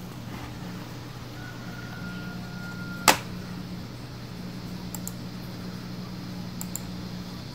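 Room tone with a low steady hum, a faint high tone lasting about a second and a half, and a single sharp click about three seconds in.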